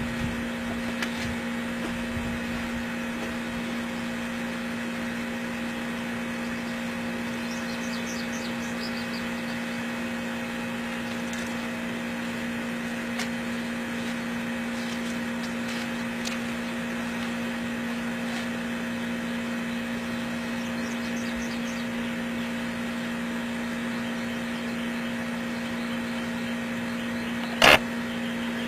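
Steady mechanical hum with a constant low tone over a noisy background, and one sharp click near the end.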